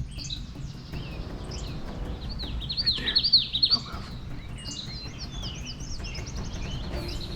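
Several small songbirds singing and calling, with quick high down-slurred chirps; one bird gives a loud rapid run of chirps about three seconds in. A steady low rumble lies underneath.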